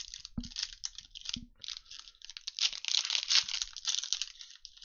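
Trading card pack wrappers crinkling and crackling as they are torn open and handled, with a couple of soft thumps early on. The crackling is densest about three seconds in.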